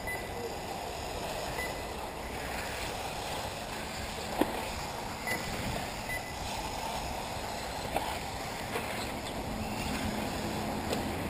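1/8-scale electric RC off-road buggies racing around the track, heard as a steady rushing noise with wind on the microphone and a few sharp knocks, the loudest about four and eight seconds in.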